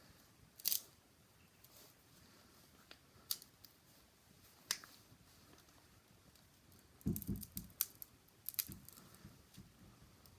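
Plastic toy being handled: scattered small clicks and taps, with a busier patch of taps and low bumps about seven seconds in.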